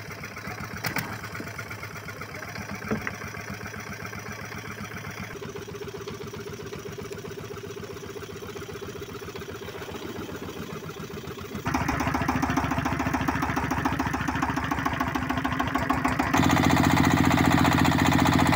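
Small single-cylinder engines running steadily with an even chugging, across several clips joined end to end; the sound jumps louder about two-thirds of the way through and again near the end.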